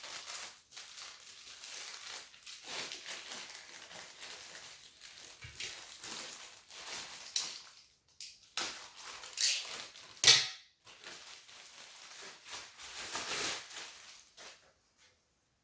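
Plastic packaging rustling and crinkling as it is handled and pulled open, in irregular bouts, with one sharp knock about ten seconds in.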